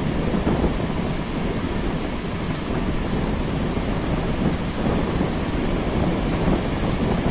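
Wind rumbling on the microphone over the steady wash of breaking surf.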